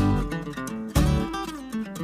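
Background music led by a plucked and strummed acoustic guitar, with strong struck notes at the start and about a second in.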